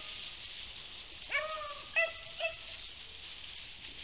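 Rabbit-hunting hounds giving voice in the brush while they search for a rabbit: one long drawn-out bay, then two short yelps about half a second apart.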